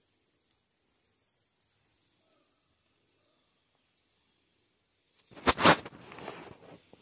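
Bird calls in woodland: a few faint high whistles, each sliding down in pitch, the clearest about a second in. About five seconds in, a sudden loud scuffing, crackling noise close to the microphone lasts about a second and trails off.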